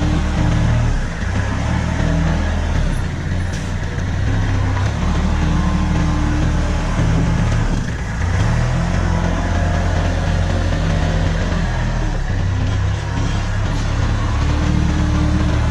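Kubota L35 tractor-loader-backhoe's diesel engine running under work, a steady low drone whose pitch shifts up and down several times as the load or throttle changes.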